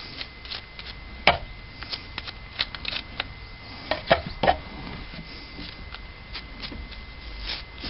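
Toothbrush scrubbing small lawn mower carburetor parts: irregular brushing scrapes and light clicks, with one sharper click about a second in.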